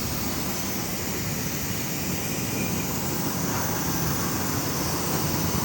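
Steady mechanical running noise, even throughout with no distinct knocks or beats.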